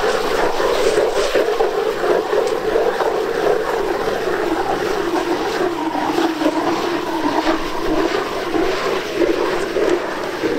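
Hand-cranked ice auger drilling a fishing hole: its blades grind and crunch steadily through the ice as the handle is turned.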